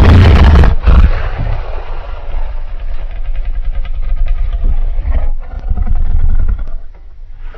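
Giganotosaurus dinosaur sound effect: a loud roar ends about a second in, followed by a low rumbling sound with many small clicks that fades near the end.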